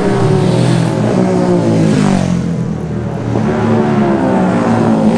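Road-racing motorcycle engines at high revs passing close by, the pitch falling as one goes past about two seconds in, then climbing again as the next accelerates.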